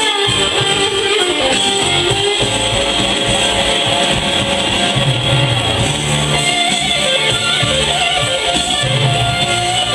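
Recorded rock music led by electric guitar, played back through a hi-fi power amplifier and loudspeakers into the room.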